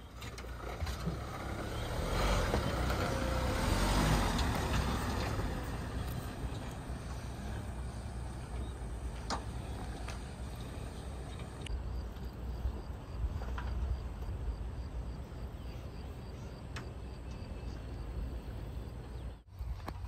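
Mahindra Thar driving off-road over rough dirt and rubble, its engine and tyres heard from outside the vehicle as a steady rumble, loudest a few seconds in.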